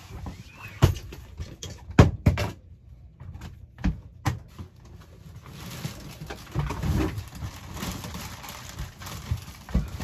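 Knocks and thumps of stored gear being shifted and handled, a handful of sharp knocks in the first half, then a stretch of rustling as a fabric bag is moved.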